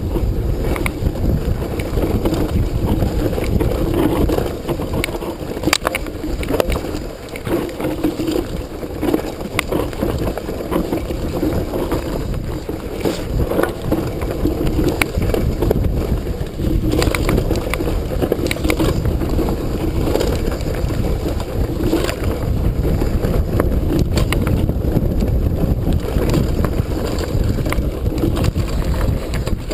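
Downhill mountain bike ridden fast down a rough dirt forest trail: tyres on dirt and stones and wind on the microphone make a steady noise, with frequent sharp clicks and rattles from the bike over the rough ground.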